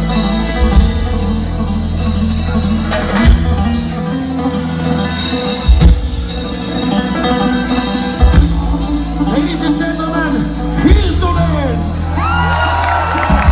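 Bluegrass-style band playing live: a plucked bass line with regular drum hits and string instruments, with shouting voices. A few long held notes come in about twelve seconds in.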